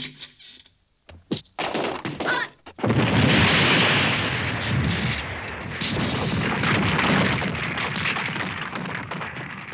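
A few light knocks, then about three seconds in a loud blast as a door is blown out of its frame, followed by a long rush of crashing debris that slowly dies down: an anime explosion sound effect.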